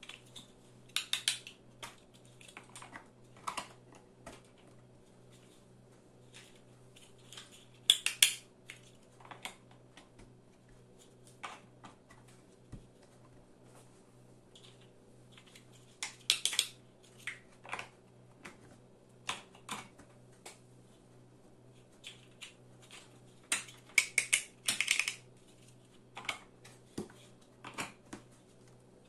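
Large plastic building blocks clicking and clattering as they are handled and pressed together. The clicks come in scattered clusters several seconds apart, over a faint steady low hum.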